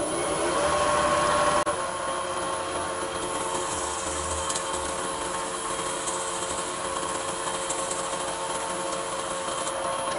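Wood lathe motor coming up to speed, its whine rising at the start, then running steadily at a modest speed. A wet, sponge-backed micro mesh pad rubs on the spinning wooden pen blank during the sanding.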